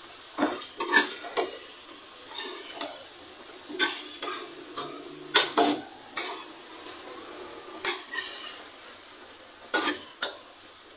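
Metal ladle stirring cauliflower and potato pieces in a metal pot, scraping and clinking against the pot at irregular moments, over a steady sizzle of frying.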